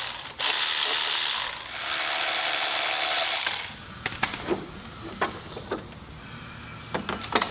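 A ratchet on a long socket extension spinning the exhaust manifold nuts off a Subaru EJ20 flat-four, in two long runs of fast clicking. After that come scattered metallic clicks and clinks.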